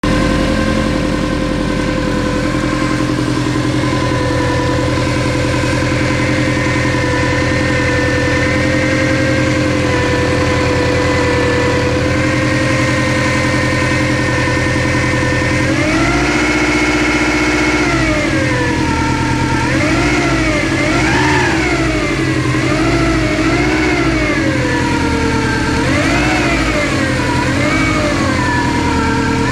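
Subaru Impreza GT's turbocharged flat-four engine idling with an annoying whine from the front of the engine. About halfway through it is revved up and held briefly, then blipped up and down again and again, the whine rising and falling in pitch with engine speed. The owner rules out the alternator and power steering pump and suspects the timing belt or a pulley.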